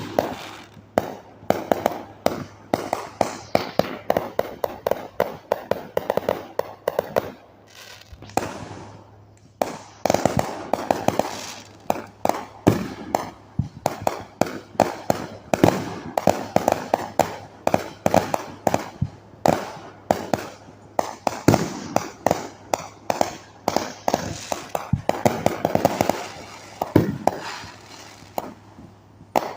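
Fireworks going off in quick succession: a dense, continuous string of pops and bangs with crackling, several a second, easing briefly about nine seconds in and again near the end.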